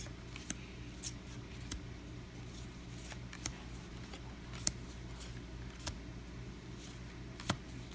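Scattered short clicks and light rustles of trading cards and their packaging being handled, over a steady low hum.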